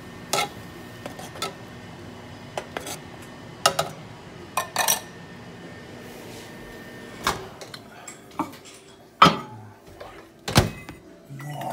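A metal spoon knocking and scraping in a saucepan of beans, followed by scattered clinks and knocks of pans and dishes being handled, over a faint steady hum.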